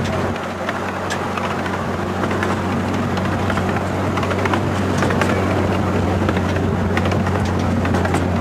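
Miniature railway locomotive's engine running steadily under way with a low even drone, with the carriage clicking and rattling over the 10.25-inch gauge track.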